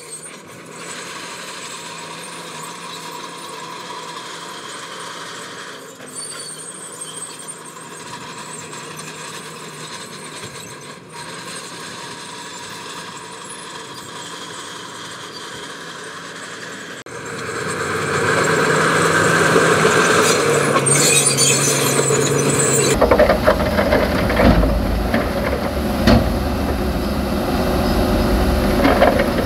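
Heavy construction machinery working, the diesel engines of dump trucks and a loader, with squealing. It turns much louder a little past halfway, and a deep engine rumble joins about three quarters of the way through.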